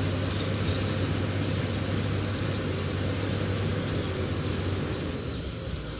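Heavy diesel engine running steadily with a strong low hum, getting a little quieter near the end.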